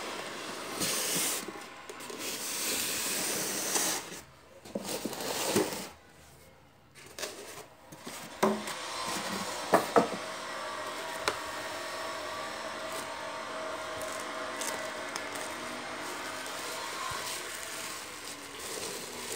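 Plastic bubble wrap and cardboard rustling and crinkling as they are handled, with a few sharp taps near the middle, over a steady hiss.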